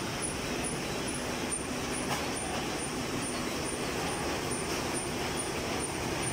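Paper roll-to-sheet cutting machine running steadily, a continuous machinery noise with a faint high tick repeating about twice a second.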